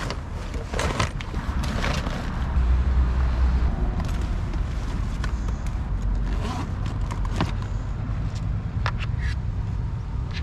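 Bags and luggage being rummaged through in a car boot: plastic rustling and scattered small clicks and knocks as items are pulled out. A steady low rumble runs underneath, heaviest a few seconds in.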